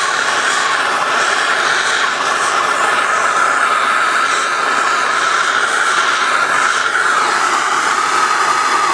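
Handheld gas soldering torch burning steadily with a hissing rush and a whistling tone; near the end the tone starts to drop in pitch.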